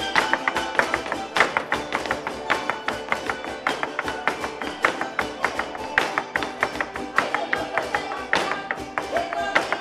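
Live Latin American folk music on harp and a plucked, strummed string instrument, with crisp percussive strokes marking a quick, even rhythm.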